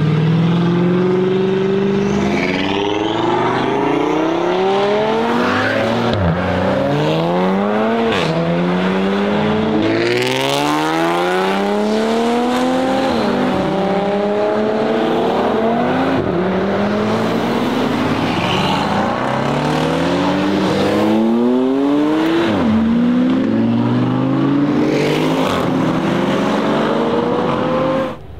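Audi RS3 sedan's turbocharged five-cylinder engine, with the ABT RS3-R tune, accelerating hard. The pitch climbs and drops with each upshift, over and over, with sharp cracks at several of the shifts.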